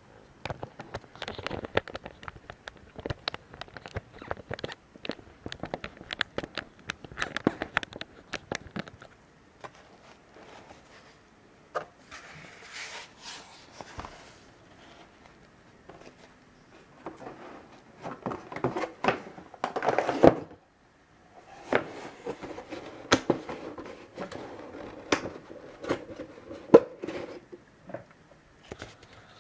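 Handling noise from a plastic-bodied laptop being turned over and set down on its foam wrapping: irregular clicks, knocks and taps of the casing, with stretches of rustling, a few sharp taps the loudest.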